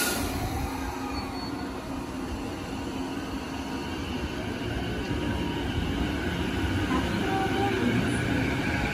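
JR East E233-8000 series electric train pulling out and gathering speed: a short sharp burst of noise right at the start, then the rumble of wheels on rail with the traction motors' whine growing louder toward the end.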